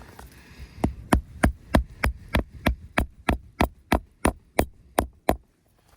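Hammer driving a nail into roof shingles: about fifteen sharp strikes at roughly three a second, stopping about a second before the end.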